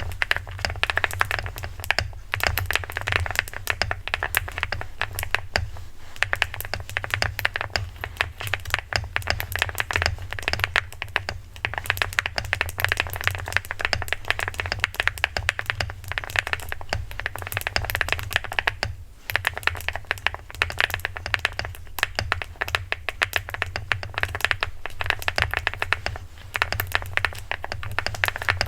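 Fast continuous typing on a HI75 mechanical keyboard: thocky, creamy keystrokes in a dense run, pausing briefly a few times, over a steady low hum.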